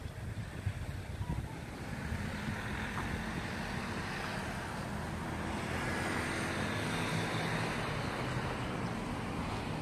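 Road traffic passing, with wind rumbling on the microphone; a vehicle's engine grows louder toward the middle and then eases off.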